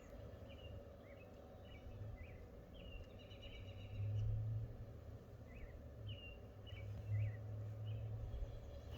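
Birds chirping: many short, high chirps scattered throughout, with a longer call about three and a half seconds in, over a low rumble that swells around four and seven seconds.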